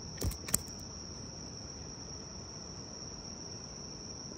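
Crickets trilling in one steady, high, unbroken tone, with two brief knocks just after the start.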